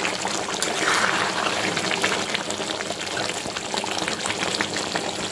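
Thick meat curry simmering in a metal kadai: a steady bubbling with many small pops, while a flat metal spatula stirs through the gravy.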